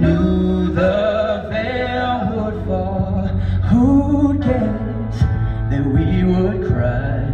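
Male vocal trio singing live into handheld microphones, their voices moving in pitch over a steady, held musical backing.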